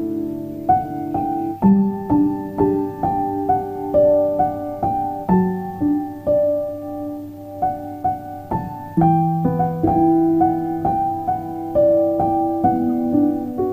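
Background piano music: a gentle melody of single struck notes, about two or three a second, over sustained lower notes.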